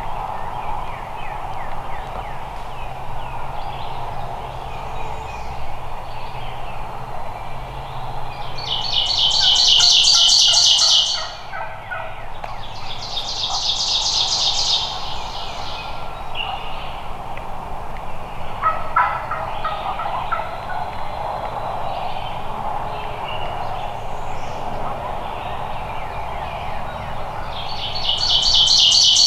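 A wild turkey gobbling in spring woods. A songbird's high, rapid trill is the loudest sound, coming three times, each lasting about two seconds.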